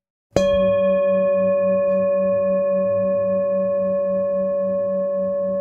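A singing bowl struck once, about a third of a second in, then ringing on with several steady tones. Its lowest tone wobbles about three times a second as it slowly fades.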